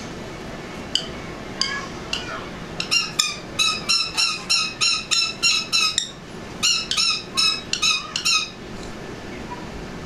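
Sun conure screeching in a tantrum: a few single harsh calls, then two fast runs of shrill screeches, about three a second, with a short pause between them.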